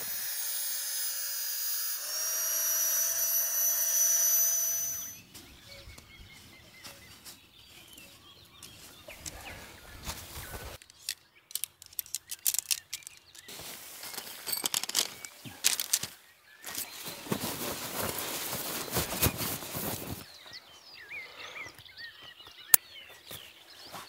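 Small electric air pump running on an inflatable sleeping pad for about five seconds, its whine stepping up in pitch about two seconds in, then cutting off suddenly. Quieter rustling of tent fabric and gear handling follows, with one sharp click near the end.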